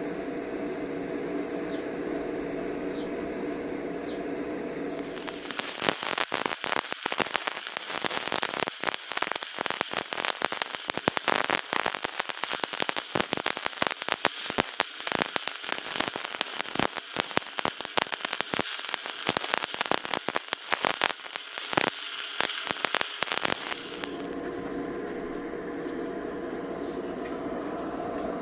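Stick (shielded metal arc) welding arc crackling and sputtering, starting about five seconds in and stopping about five seconds before the end. A steady electrical hum comes before and after the arc.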